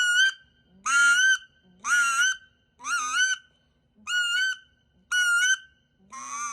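Duck Commander Woody wood duck call blown in a series of seven short whistled notes, about one a second. Each note slides up in pitch and then holds, imitating a wood duck.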